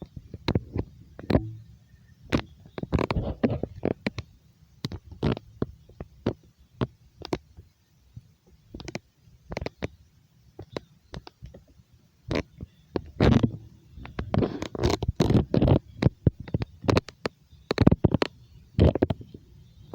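Irregular taps, bumps and rubbing close to the microphone, in quick uneven clusters.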